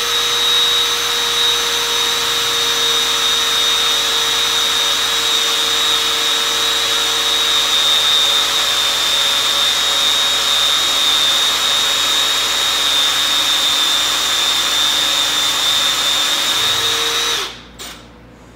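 Power drill running at a steady speed with a constant whine, boring a stretcher mortise into a wooden chair leg through a long drill extension rod, then stopping about a second before the end.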